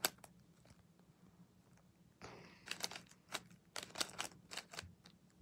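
Faint plastic clicks of a 3x3 puzzle cube's layers being turned by hand: one click at the start, a pause of about two seconds, then a quick irregular run of clicks.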